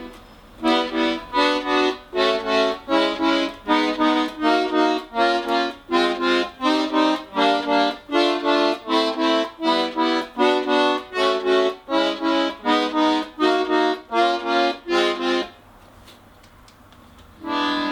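Tula 'Etude' bayan's left-hand keyboard sounding short chords one after another, about two a second, as each freshly restored and tuned chord button is tried in turn, most likely the minor-chord row. The chords stop about two seconds before the end.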